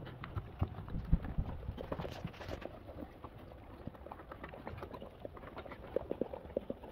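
Labrador retriever mother licking and mouthing her newborn puppy clean just after its birth: a run of small, irregular wet clicks and smacks, with a quick cluster near the end.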